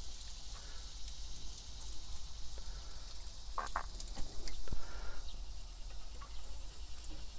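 Faint steady high hiss of outdoor background with scattered light clicks from handling the chicken on the grill grate, and one brief sharper sound about three and a half seconds in.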